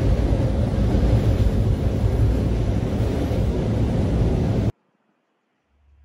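Passenger train running, heard from inside the carriage: a loud, steady rumble that cuts off suddenly near the end.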